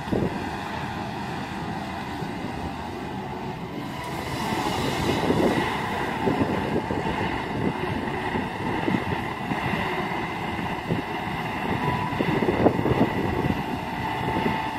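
Kobelco SK210LC-10 long-reach excavator running as its long boom and arm swing out and reach down toward the canal: a steady engine rumble with a faint whine, irregular clanks and knocks, and the machine getting louder about four seconds in.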